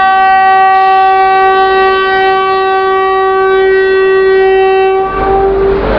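Electric locomotive horn sounding one long, loud, steady blast that cuts off near the end. A low rumbling noise rises under it about five seconds in.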